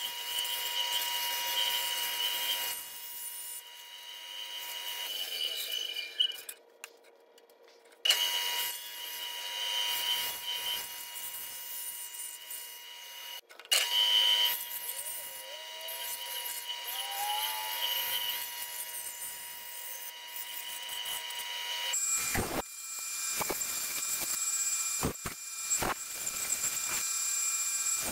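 Bandsaw running with a steady high whine as its blade cuts curves in a white-faced board. The cutting noise rises and falls as the board is fed, with brief breaks where the sound drops out.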